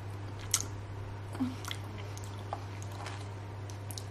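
A person chewing a mouthful of chocolate muffin with custard, with a few short wet mouth clicks, over a steady low hum.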